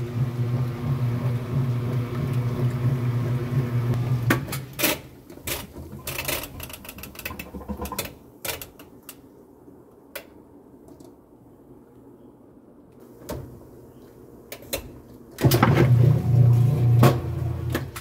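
Top-loading washing machine's motor humming steadily as it agitates, then stopping about four seconds in. Scattered clicks and knocks follow while the timer dial is turned by hand, and the motor hums again about two and a half seconds before the end.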